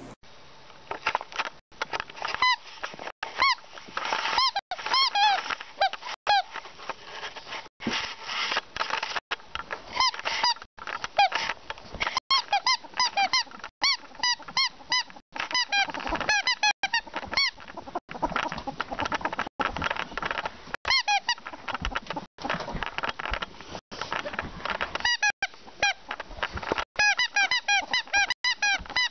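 A ferret dooking: quick runs of short, squeaky, clucking calls, the excited chuckling a ferret makes while playing and stealing things.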